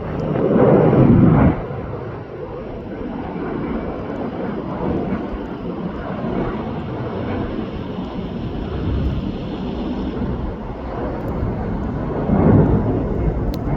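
Jet airliner engines rumbling steadily, swelling louder about a second in and again near the end.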